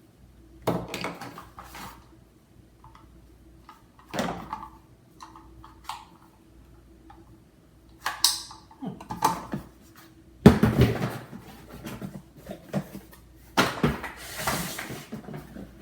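Cardboard and plastic packaging being handled and opened: irregular rustles, scrapes and small knocks, with a loud thump about ten and a half seconds in.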